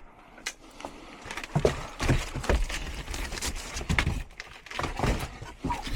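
A series of irregular knocks and clunks from equipment being handled, some sharp and some dull.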